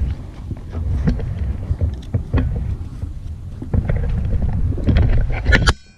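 Wind buffeting the microphone of a small camera set low in the sand, a steady low rumble with irregular knocks and scrapes from the camera being handled. A loud clatter comes near the end, then the sound drops off suddenly.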